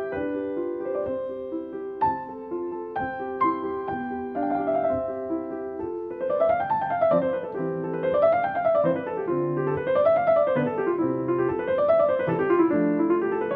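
Background piano music: struck notes and chords, then from about six seconds in, rippling runs of notes that rise and fall over and over.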